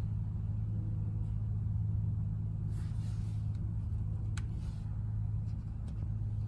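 Battery charger running on a tractor battery, giving a steady low hum. A brief rustle comes about three seconds in, with a few faint clicks.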